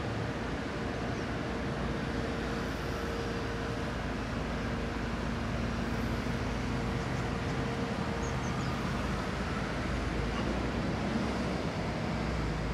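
Diesel engines of heavy construction machinery, a long reach excavator and dump trucks, running with a steady drone.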